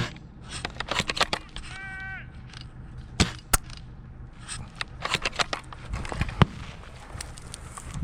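Airsoft gunfire: sharp cracking shots, bunched in rapid clusters about a second in and again around five seconds, with single louder shots in between. A short high-pitched call sounds about two seconds in.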